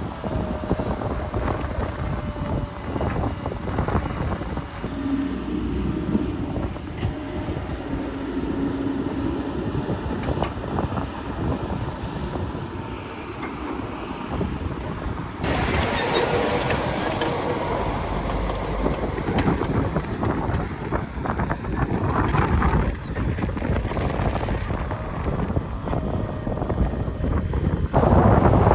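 Heavy diesel earthmoving machinery running and working, with knocks and rattles over a steady engine noise and wind on the microphone. The sound changes abruptly about halfway through and again near the end.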